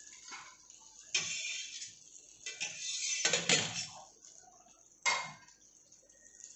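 A metal spatula clattering against a steel bowl and scraping on a hot iron tawa under an omelette, in three sudden bursts: about a second in, a longer and louder spell around three to four seconds in, and a short one at about five seconds.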